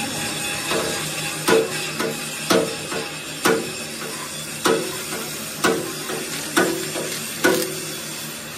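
Hammer blows on steel, about one a second, each with a short metallic ring and lighter taps between them, over a steady hiss.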